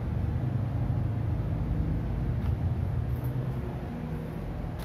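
Maspion MV-300 NEX wall exhaust fan running steadily in intake mode: a low motor hum with the rush of air through the blades, getting a little quieter near the end.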